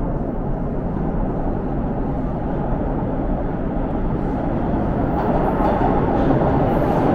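Subway train approaching through the tunnel into an underground station, its steady rumble slowly growing louder, fuller and brighter toward the end.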